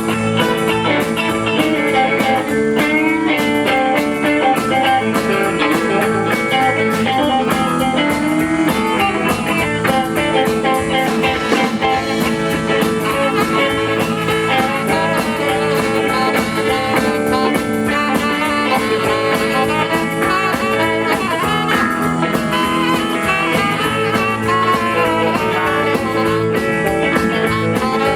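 Live band playing an instrumental break in a blues rock-and-roll number, with guitar over a drum kit and no singing.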